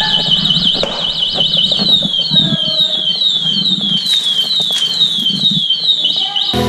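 Electronic siren alarm, most likely the electric scooter's anti-theft alarm, sounding loudly. It runs a fast up-and-down warble, switches about two seconds in to a falling yelp repeated about twice a second, and goes back to the fast warble near the end. Faint knocks of the scooter being handled sit beneath it.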